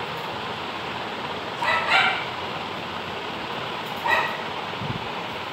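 Puppy giving short, high-pitched whimpers: two close together about two seconds in and a single one about four seconds in, over a steady hiss.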